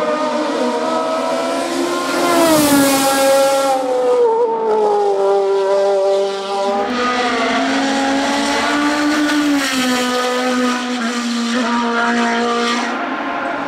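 Racing car engines at high revs, the pitch repeatedly climbing and dropping with gear changes and lifts for corners. About seven seconds in, a different car's engine takes over, lower and steadier.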